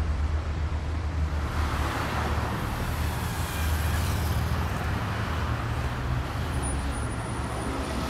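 Road traffic: a steady low engine rumble, with tyre and engine noise swelling as vehicles pass from about a second and a half in, then easing off.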